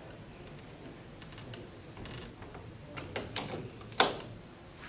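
Casement window crank operator being wound by hand, its gears running softly, followed by a few clicks and knocks near the end, the sharpest a single click about four seconds in as the crank handle is folded down.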